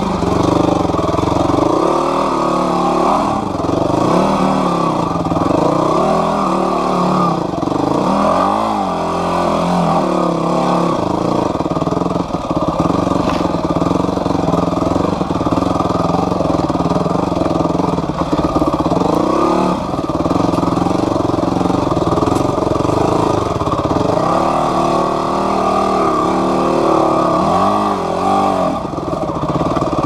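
Yamaha WR250F four-stroke single-cylinder dirt bike engine running under load, its revs rising and falling over and over as the throttle is worked over rough, rocky ground.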